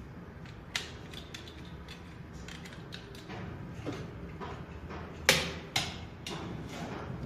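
Scattered mechanical clicks and creaks over a low steady hum, with two sharp knocks about half a second apart a little after five seconds in.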